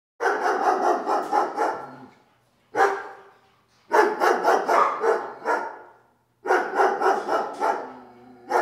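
A dog barking in quick runs of several barks each, with one lone bark about three seconds in.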